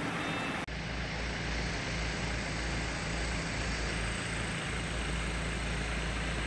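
Heavy diesel engine of a crawler crane running steadily as it hoists a clamshell grab bucket, with a low rumble underneath.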